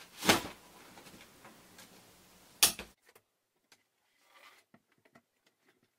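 A white photo umbrella being handled and opened: two loud rustling bursts, one just after the start and one just under three seconds in, then faint clicks and a short rustle as it is fitted to a light stand.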